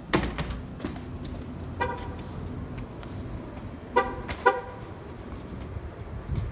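Three short horn toots over steady city street noise: one about two seconds in, then a quick pair about four seconds in. A few clicks come just at the start.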